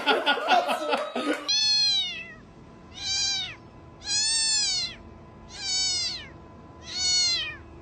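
A cat meowing five times in a row, each meow a clear call rising and then falling in pitch, about a second and a half apart. It follows a brief jumble of voices at the start.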